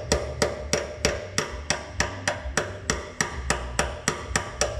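A hammer striking metal in a steady rhythm, about three blows a second, each with a short ring, knocking a part into place during a clutch and transmission install.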